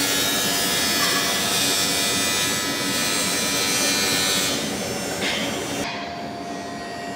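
Aluminium welding arc buzzing and hissing steadily while filling a small hole, cutting off about six seconds in. A quieter steady hum from the welding machine continues afterwards.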